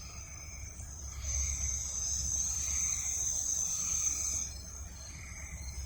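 Faint outdoor night ambience: a high, steady insect buzz that swells for about three seconds in the middle, over a low, steady distant rumble.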